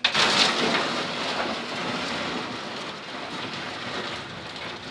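Aluminum boat hull grinding over river gravel as it runs up onto a gravel bar: a loud scraping that sets in suddenly and slowly eases off.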